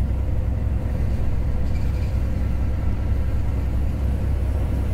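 Steady low rumble of a vehicle driving at road speed, heard from inside the cabin: engine and tyre noise with no change in pace.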